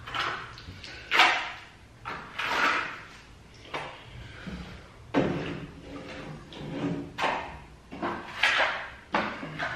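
Steel plastering trowel scraping over wet plaster in a series of short, separate strokes, about one a second, loud then fading on each stroke.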